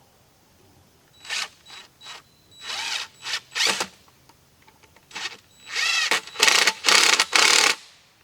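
Handheld power drill run in about ten short bursts, its motor pitch sweeping up and down as the trigger is squeezed and let go, with the longest runs near the end.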